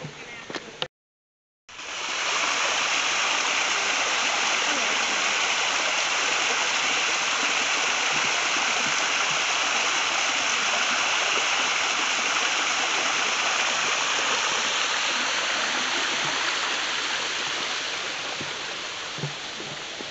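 Creek waterfall, water rushing steadily and loudly, growing fainter over the last few seconds. The sound cuts out completely for under a second just before the rush begins.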